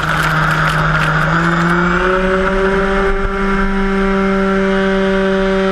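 Model Cessna 182 seaplane's electric motor and propeller at takeoff power: a steady whine over hissing water spray from the floats. The spray fades as the plane lifts off, and the whine rises in pitch between one and two seconds in, then holds steady.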